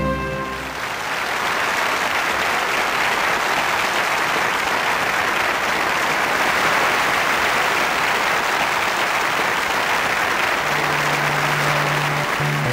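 Large arena audience applauding steadily. The end of a music sting fades out at the very start, and a held low note of the next song's introduction comes in near the end.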